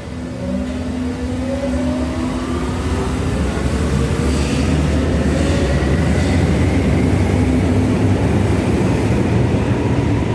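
Berlin U-Bahn train pulling out of an underground station and accelerating: the traction motors give a whine that rises steadily in pitch over a growing rumble of wheels on rails.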